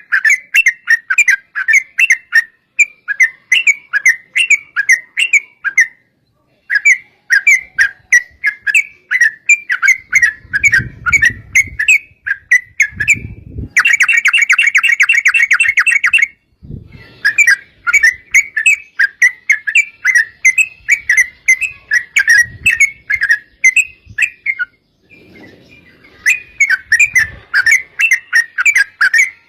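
Yellow-vented bulbul (trucuk) singing loud, rapid bubbling phrases of quick chirped notes, one after another with brief pauses. A little past halfway the notes run together into a fast, unbroken rolling trill for a couple of seconds.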